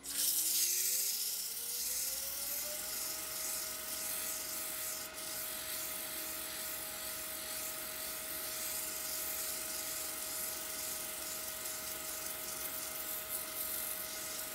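Wood lathe motor whining as it spins up, rising in pitch over the first three seconds and then holding steady. Over it is the loud hiss of a sanding pad rubbing the inside of the spinning cherry platter.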